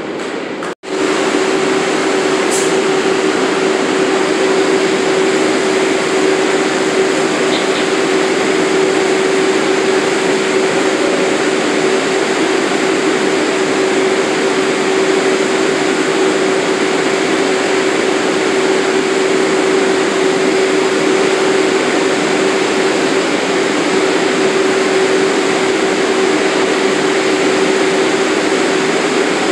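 New York City subway train of R62A cars standing at the platform with its doors open, its air-conditioning and auxiliary equipment giving a steady hum with one steady mid-low tone. The sound drops out briefly just under a second in.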